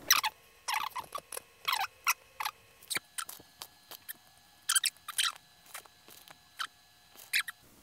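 Gloved hands lifting crispy fried chicken pieces out of a paper-lined cardboard box and setting them down: a string of short crinkles and crackles from the paper and the crust, with quiet gaps between them.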